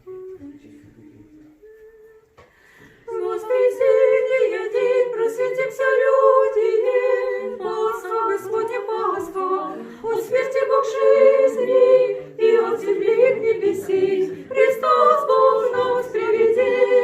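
Orthodox church choir singing a cappella, many voices together, coming in loudly about three seconds in after a few soft notes from a single voice.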